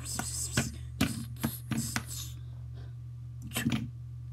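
A hand-held knife clicking and scraping against a metal fidget spinner on a tabletop: a rapid series of clicks for about two seconds, a pause, then a short cluster of clicks near the end.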